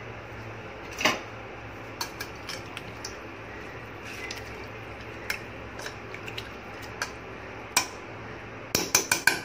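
A metal spoon and ladle clinking and scraping against a stainless steel pot as a watery curry is stirred: scattered single knocks, then a quick run of clinks near the end, over a steady low hum.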